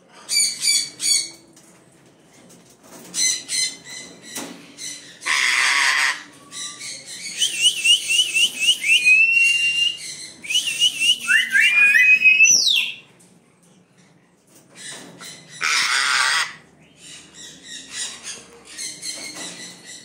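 Parrots calling: short harsh squawks, two long harsh screeches, and in the middle a run of rapid chirps with rising whistles.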